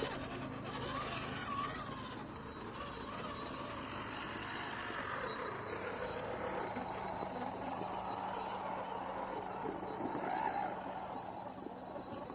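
1:12-scale RC 4x4 crawler's electric motor and gearbox whining as it drives over rocks. The pitch rises and falls with the throttle, under a steady high-pitched tone.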